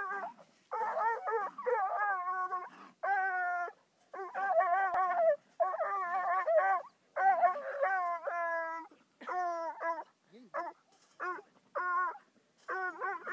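Five-month-old Bluetick coonhound pup baying at a raccoon in a live trap: a run of drawn-out, pitched calls, one after another with short breaks. After about ten seconds they turn into short, choppy yelps.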